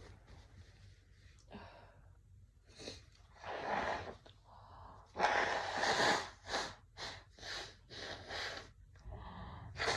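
A man's breathy gasps and loud noisy bursts from the nose and mouth during a chhinkni-induced sneezing fit. The loudest burst lasts about a second, about five seconds in, and is followed by several short ones.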